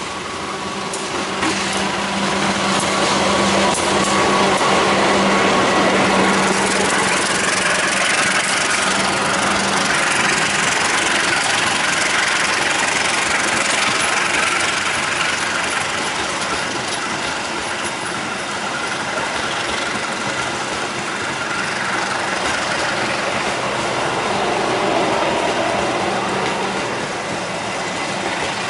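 Diesel-electric locomotive hauling a passenger train passes close by on the adjacent track. Its engine note rises over the first few seconds and is loudest around five seconds in, then gives way to the steady rumble of the coaches' wheels on the rails as the long line of coaches rolls past.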